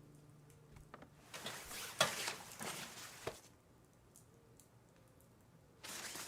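Faint rustling with a few soft clicks and taps between about one and three and a half seconds in, and a short rustle near the end.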